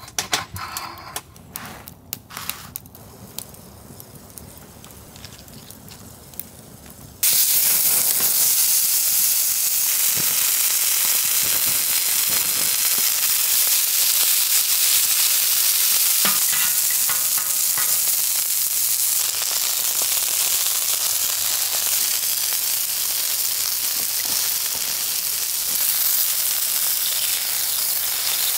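A knife slicing a tomato on a wooden cutting board, with a few light taps. After about seven seconds the sound switches abruptly to loud, steady sizzling of burger patties and onions frying in oil on a steel fire-barrel griddle plate, with a few clicks of metal tongs.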